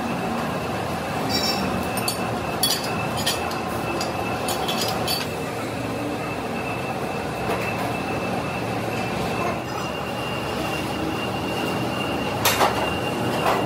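Metalworking machinery running steadily with a high, constant whine. Sharp metallic clinks come now and then in the first few seconds, and a louder clank comes about twelve seconds in.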